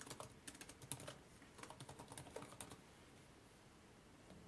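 Faint typing on a computer keyboard: a quick run of keystrokes that stops a little past halfway through.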